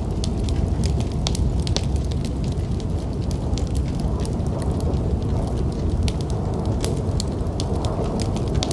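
Wood fire in a fireplace crackling, with frequent short sharp pops, over a steady low rumble of storm wind.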